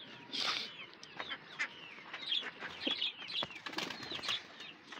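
Two pigeons fighting: short bursts of wing flapping and wing slaps, the strongest about half a second in, with scattered small clicks and scuffles.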